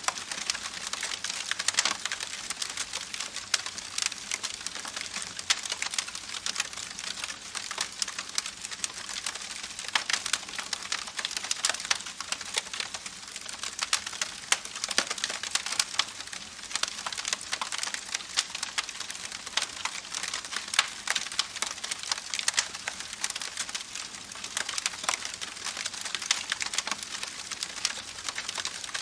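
Campfire crackling with many small irregular pops and snaps, over the steady rush of a babbling creek.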